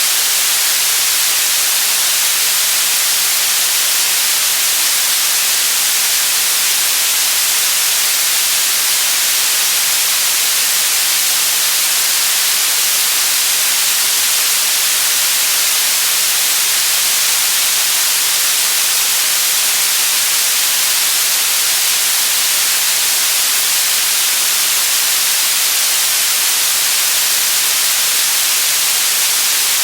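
Steady white noise: an even, bright hiss with no breaks or changes.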